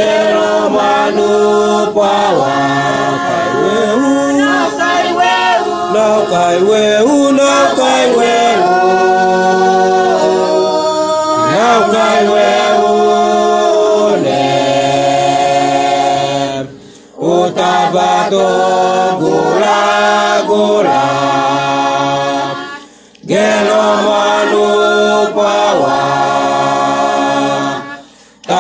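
A family choir singing a hymn in the Misima language, unaccompanied, with brief breaks between phrases about 17 and 23 seconds in and just before the end.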